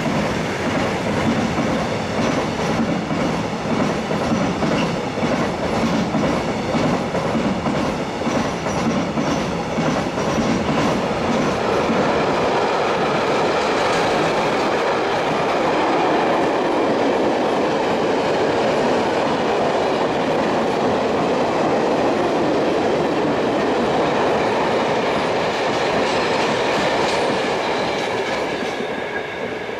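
Loaded container wagons of a freight train rolling past, their wheels clicking rhythmically over the rail joints, then settling into a smoother rumble and rail hiss. The sound begins to fade near the end as the train draws away.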